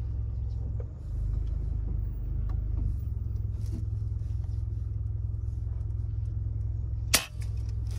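Car engine running with a steady low rumble heard from inside the cabin. One sharp crack stands out about seven seconds in.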